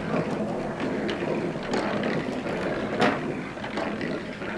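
Marbles rolling along the poster-board track of a balsa-wood marble roller coaster: a steady rolling rumble broken by a few sharp clicks.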